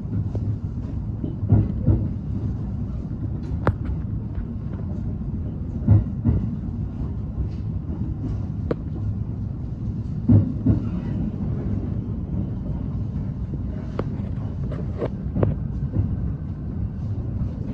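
Rapid Marine Liner electric train heard from inside the carriage as it rolls into its terminus platform: a steady low rumble with scattered clicks and knocks from the wheels on the track.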